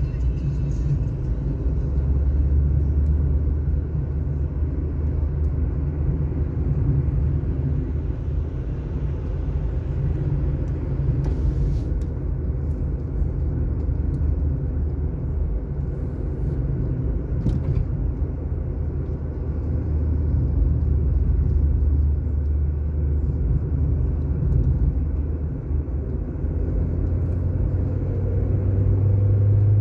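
Car driving steadily on asphalt: a continuous low engine drone and tyre rumble. The engine hum shifts pitch a few times and rises near the end. There are brief hissing noises about twelve and eighteen seconds in.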